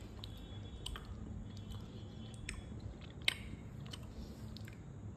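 A person chewing a mouthful of fish curry and rice, with a few sharp clicks about a second in, at two and a half seconds and just past three seconds, over a low steady hum.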